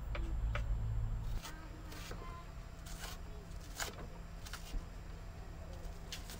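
Knife chopping vegetables on a wooden cutting board: a string of irregular sharp taps. A low background rumble drops away about a second and a half in.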